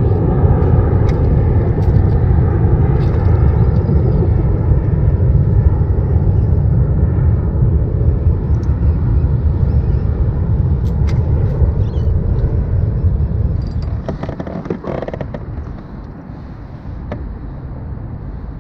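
A loud, steady low rumble that falls away sharply about fourteen seconds in, leaving a quieter rumble with a few faint clicks.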